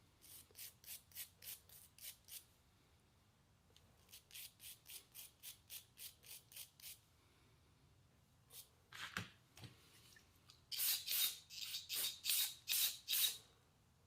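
A hand tool working in short, quick rasping strokes, about four a second, in four runs with pauses between, the last run the loudest.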